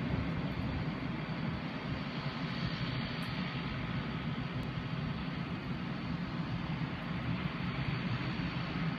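Distant aircraft engines running, a steady, unbroken rumble with a faint hiss above it.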